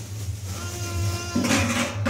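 A metal tray and dishes scraping and clattering on the floor near the end, after a small child's drawn-out vocal sound, over a steady low hum.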